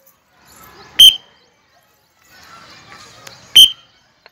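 Two sharp, loud strokes with a high ringing tone, about two and a half seconds apart, beating time for a children's wooden-dumbbell drill. A low hubbub of children's voices lies between them.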